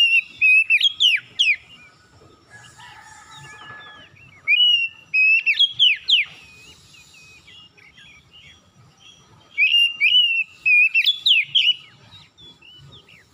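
Oriental magpie-robin singing three loud phrases a few seconds apart, each a run of clear whistles with quick downward sweeps.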